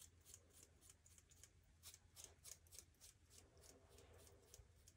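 Faint, crisp scraping of a cartridge razor shaving mustache stubble wetted only with water, no shaving cream. Short quick strokes come about four a second and thin out near the end.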